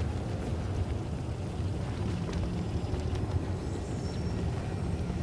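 Steady low rumble in a layered desert-town ambience, with faint scattered clicks and ticks over it and a faint thin high tone appearing later on.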